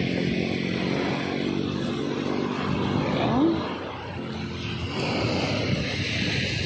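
Steady drone of an engine running, with a short rising squeal about halfway through.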